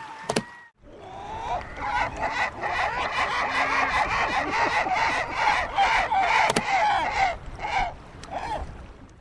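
A large flock of gulls calling all at once, many short overlapping cries, thinning out near the end. A sharp click and a brief break come just before the chorus begins.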